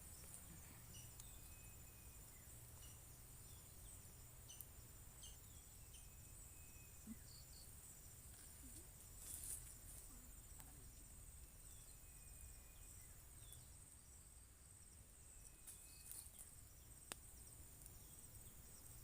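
Faint forest night ambience: a steady, high-pitched drone of crickets with scattered short chirps and a few faint ticks.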